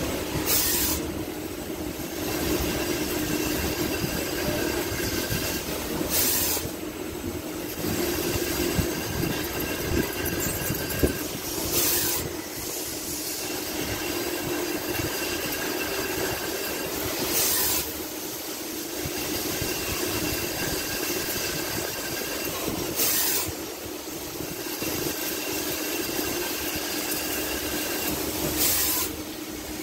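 CNC lathe cutting a 30 mm pitch helical groove with a 5 mm wide OD grooving tool: a steady machine hum, with a short rush of noise coming back about every five and a half seconds as the passes repeat.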